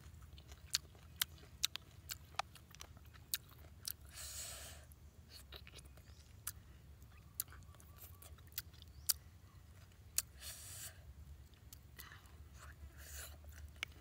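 Close-up chewing and crunching of cooked sea snail meat, with many sharp clicks and three longer, softer rushing sounds between them.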